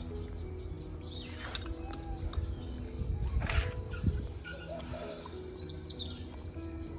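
Small birds chirping, with a quick falling run of high chirps about five seconds in, over soft background music with held notes.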